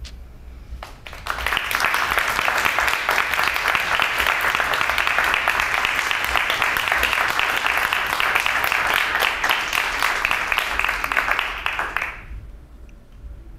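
Audience applauding a talk's close: many people clapping, starting about a second in and dying away about a second before the end.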